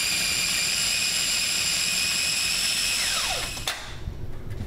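Mini Cuisinart food processor motor running with a steady high whine, blending a herb chimichurri sauce. About three seconds in it is switched off and winds down with a falling whine, followed by a sharp click.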